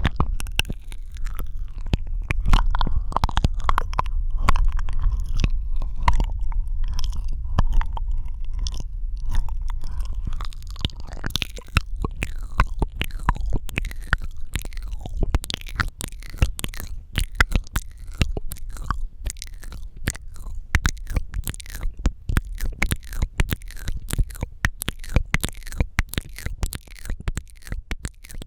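Close-miked ASMR mouth sounds: rapid wet clicks and smacks of the lips and tongue, with a low rumble under the first half.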